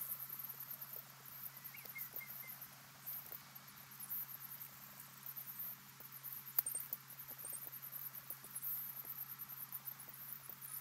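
Pond ambience: a faint, high-pitched, rapidly pulsing animal chorus, with a few soft chirps about two seconds in and one sharp click a little past the middle, over a steady low hum.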